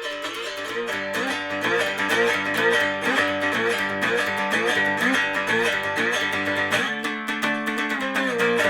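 Cigar box guitar with a piezo pickup, played plugged in: a quick run of picked notes and strums, ending on a held chord that rings out near the end.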